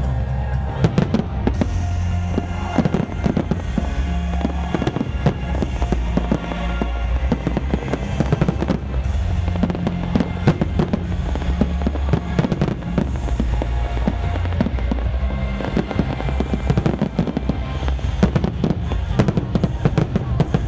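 Fireworks going off in quick, irregular bangs and crackles, over music with a steady bass line.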